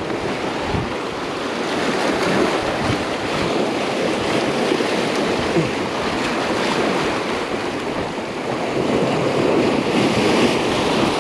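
Surf washing and breaking against the boulders of a rock jetty, a steady rush of foaming water that swells a little near the end.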